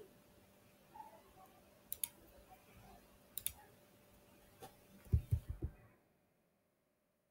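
Computer mouse clicks, a few of them in quick pairs, then a short run of deeper keyboard key knocks as a word is typed.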